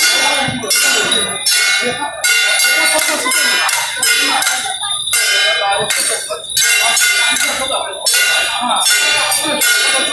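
Traditional temple-procession metal percussion, gongs and cymbals, struck in a steady rhythm, loud and ringing.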